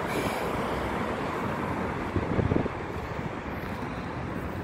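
Wind buffeting the microphone over steady road traffic noise, with a louder gust about two seconds in.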